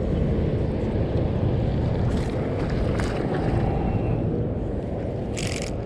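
Steady low rumbling noise from a fishing boat out on the water, with a few brief clicks or rustles about two and three seconds in and a louder rustle near the end.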